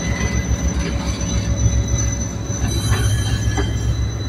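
Freight train of empty cement hopper wagons rolling with a steady low rumble and a thin, steady high wheel squeal, with a couple of short knocks about three seconds in.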